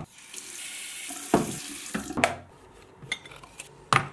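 Water running from a bathroom faucet for about two seconds, then stopping. A few hard clunks follow, the last near the end from a ceramic mug being set into a coffee maker.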